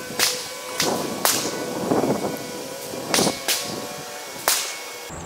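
A person walking briskly over dry ground: irregular swishing and scuffing footfalls with clothing rustle, heard close up, about one every half second to second.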